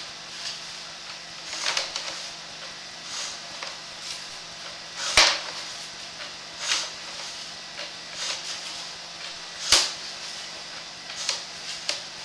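Sewer inspection camera and its push rod being fed down a 4-inch sewer pipe: intermittent scraping and knocking, with two sharp knocks about five and ten seconds in.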